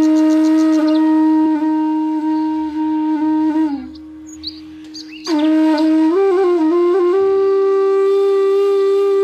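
Background music: a flute-like wind instrument playing long held notes. It breaks off about four seconds in and comes back with a phrase that steps up to a higher held note.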